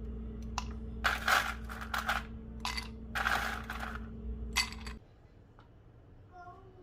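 About five bursts of clinking and rattling, like small hard pieces tumbling together, over a steady hum; both stop abruptly about five seconds in. A faint cat meow follows near the end.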